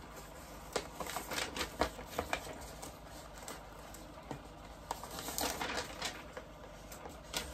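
Paper and packaging being handled while a quilting kit is unpacked: scattered short rustles and light clicks, a few louder ones about a second and a half in and again past five seconds, as a paper template sheet is drawn out.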